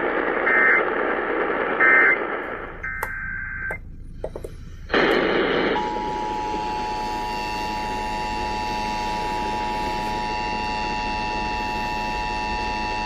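Emergency Alert System tones received over radio hiss: three short electronic data-burst screeches of the alert header, a brief pause with a few clicks, then the steady two-tone EAS attention signal sounding through the last seven seconds, announcing the alert that follows.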